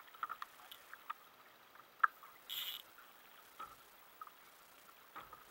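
Faint, scattered clicks and taps from a spinning reel and rod gear while a fish is being played from a kayak, with a short hiss about two and a half seconds in and a couple of dull knocks against the hull.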